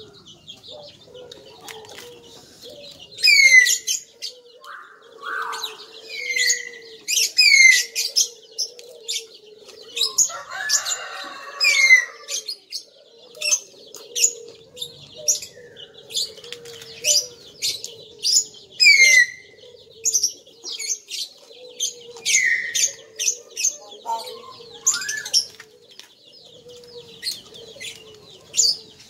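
Birds chirping with repeated short falling calls, over close crunchy chewing of raw vegetables and crisp fried fish.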